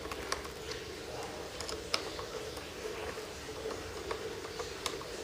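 Faint scattered light clicks and ticks from hands handling an RC airplane's propeller and motor mount, over a low steady hum.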